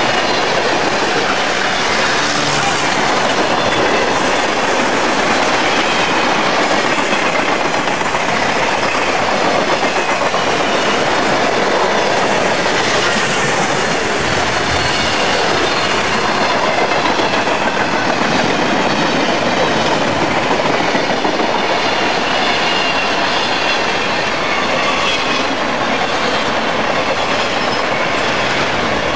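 Freight train passing close by: a steady, loud rumble and clatter of freight car wheels rolling over the rails, with a faint high squeal of wheels against the rail.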